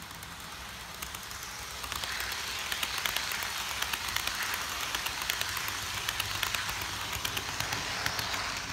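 Model passenger train of double-deck commuter cars rolling past close by: a steady rattling hiss of the wheels on the track with rapid clicks over the rail joints, growing louder from about two seconds in as the cars draw level.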